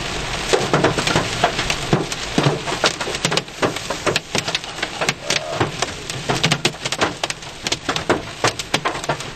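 Heavy rain pelting a vehicle: a dense, irregular run of sharp impacts over a steady hiss.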